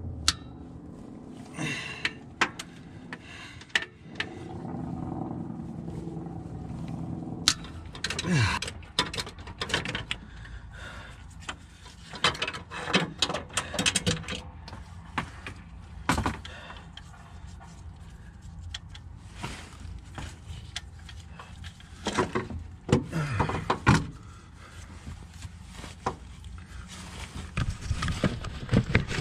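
Ratchet wrench clicking in bursts as a 13 mm socket backs out the starter mounting bolts, with scattered metallic clinks and knocks of tools and parts, over a steady low hum.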